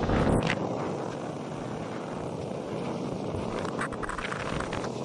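Steady rushing rumble of a distant military jet aircraft, mixed with wind and the wash of waves.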